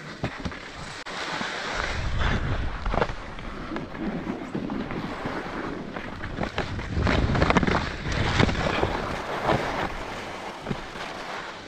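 Skis scraping and chattering over packed snow, with wind buffeting the helmet-mounted microphone in a low rumble that builds about two seconds in.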